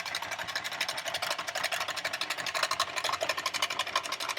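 A small motor running steadily with rapid, evenly spaced mechanical clicking, well over ten clicks a second.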